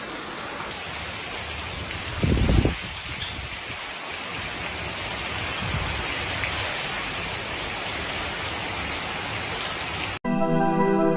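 Steady rain from Hurricane Delta pouring down in an even hiss, with a brief low rumble about two seconds in. About a second before the end it cuts off suddenly and ambient music with sustained tones begins.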